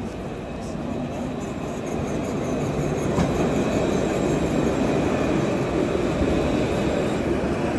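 A city tram passing close by. The rumble of its wheels on the rails grows louder over the first few seconds and then holds steady, with a faint high whine above it.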